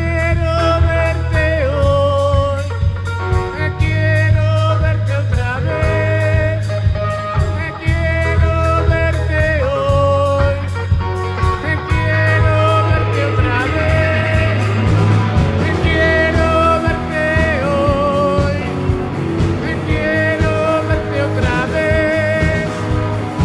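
Rock band playing live on stage: an electric guitar repeats a melodic lead phrase with bent notes over bass and a steady drum-kit beat.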